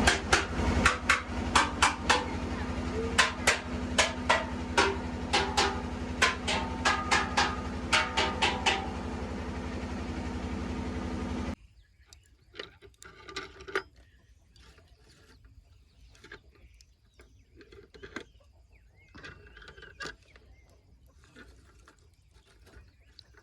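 A vehicle engine running steadily, with sharp knocks and rattles about once or twice a second over the first nine seconds. The engine sound cuts off suddenly about eleven and a half seconds in, leaving only faint scattered sounds.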